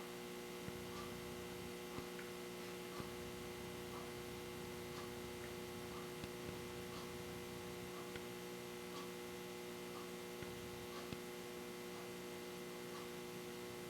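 Steady mains hum with a few faint, irregular light ticks from tiny metal parts being handled.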